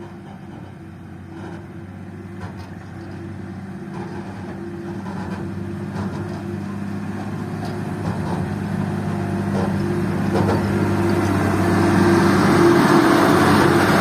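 Heavy diesel engine running steadily, growing gradually louder and loudest near the end, with a few faint knocks.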